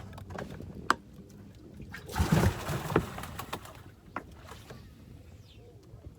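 Knocks and handling noise on a fishing boat: a few sharp knocks, with a brief loud noisy rush about two seconds in.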